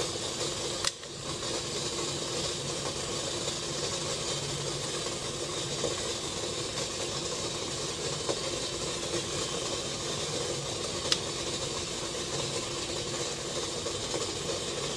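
Steamer pot of water boiling on a gas burner: a steady hiss of steam, with two faint clicks, one about a second in and one near eleven seconds.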